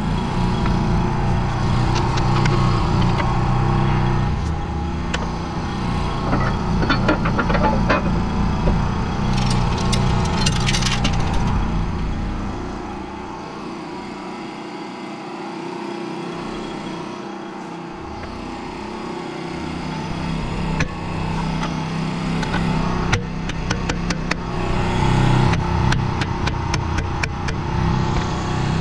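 Small engine running steadily, quieter for several seconds in the middle, with scattered sharp clicks and knocks over it.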